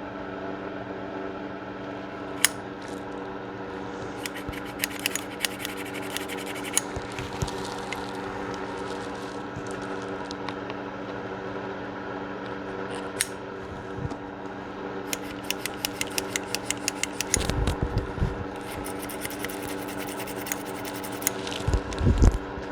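Small metal clicks, scrapes and rattles of a gun being handled during cleaning, with runs of quick even clicks in the second half and a few heavier knocks near the end, over a steady hum.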